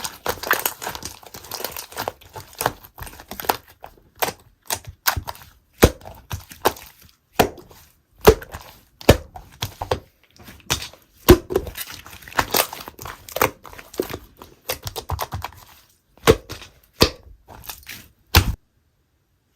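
Slime being pressed and stretched by hand, giving irregular sharp pops and crackles as air pockets burst. It stops abruptly near the end.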